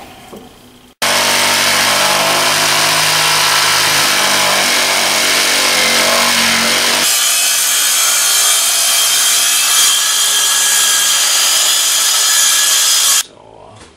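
A jigsaw running and cutting into a thick wooden countertop board. About seven seconds in, the sound changes abruptly to a circular saw cutting the board, which stops sharply shortly before the end.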